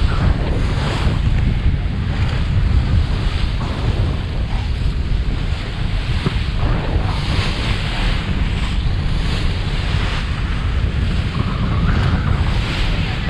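Strong wind buffeting the microphone over the steady rush of the sea, as a wooden gaff-rigged sailboat sails fast through the waves in 20-plus knots of wind. The noise swells and eases every few seconds.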